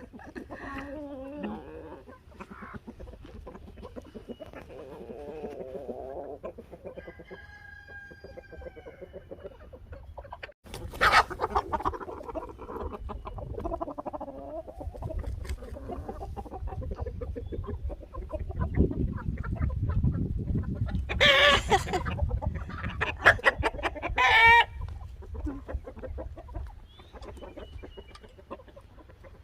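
Chickens clucking and calling, with several louder, wavering calls partway through and near the end.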